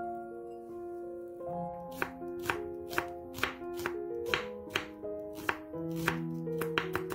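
Background music, joined about two seconds in by a chef's knife slicing an onion into thin strips on a wooden cutting board. The blade knocks on the board about twice a second.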